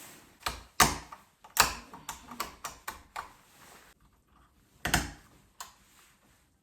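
Light switches and their fittings being pushed back into the wall boxes: a string of sharp, irregular clicks and knocks, closely spaced at first, then two more a couple of seconds later.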